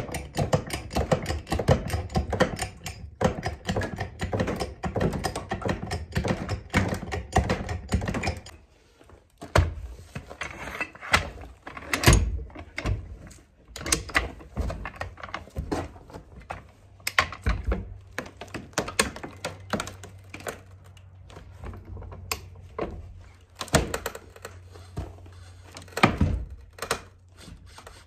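Dense rapid clicking and clattering for the first eight seconds or so. Then separate metal clanks every few seconds as a high-lift farm jack is worked, lifting a barn wall corner to take its weight off the sill.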